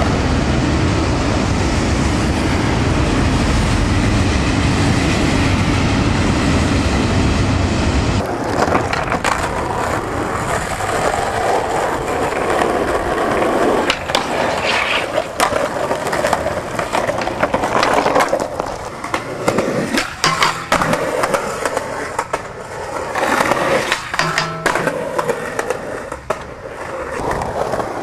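Skateboards on pavement: for the first eight seconds a loud, steady rumble of wheels rolling over asphalt, then, after a cut, wheels rolling on concrete with a series of sharp clacks and knocks from tails popping and boards landing.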